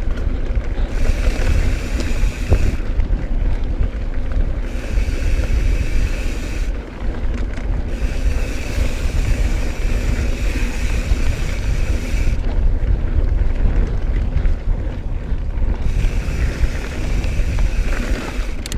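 Mountain bike rolling along dirt singletrack: wind buffeting the chest-mounted camera's microphone and a steady tyre rumble, with a higher hissing buzz that comes and goes four times.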